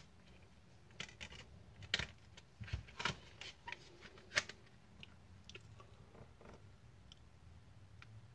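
Plastic CD jewel case being handled: a string of sharp clicks and clacks as the case is closed and turned over in the hands, the loudest about two seconds in and again past four seconds.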